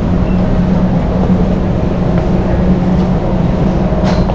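Steady low mechanical hum over a rough rumble, the ambience of a warehouse store's aisles, with a short click about four seconds in.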